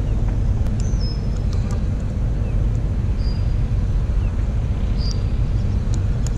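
Steady low outdoor rumble throughout, with a few short high chirps about one, three and five seconds in and some faint clicks.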